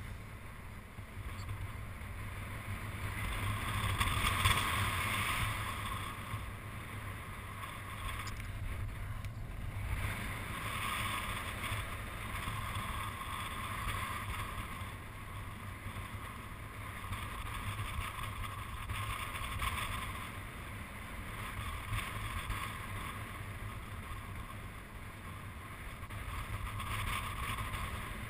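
Airflow rushing over the camera microphone of a paraglider in flight: a steady wind rush with a low rumble that swells and eases every several seconds, strongest about four seconds in.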